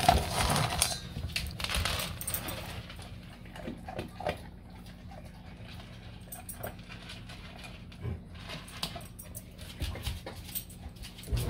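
A hand rattles through dry kibble in a stainless steel bowl and scatters it onto a tile floor, then a dog picks up and chews the kibble in scattered small clicks and crunches.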